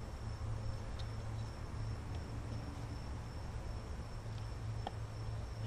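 Outdoor background of a steady high insect drone over a low steady hum, with a faint click about a second in and another near five seconds.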